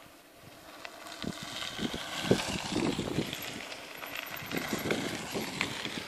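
Mountain bike tyres crunching and crackling over sandy gravel track as riders come past, with many small sharp clicks; it grows louder about a second in and is loudest through the middle as a rider passes close.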